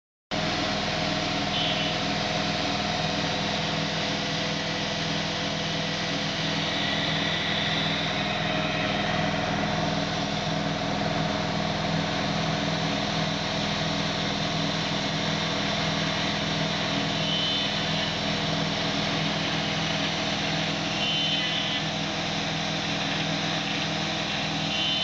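Desktop CNC router's Kress spindle running at speed while its end mill cuts holes in an aluminium plate: a steady whine over dense cutting noise, with a few brief higher-pitched chirps as the cutter bites.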